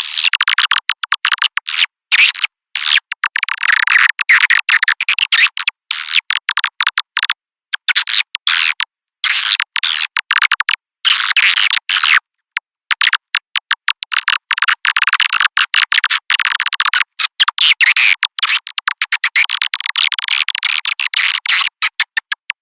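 Swiftlet lure call: a flock of edible-nest swiftlets twittering and chirping in dense overlapping bursts, edited and chopped into short pieces with abrupt silent gaps, nothing heard below the high chirps. It is the kind of call played in a swiftlet house to draw the birds in and get them to roost.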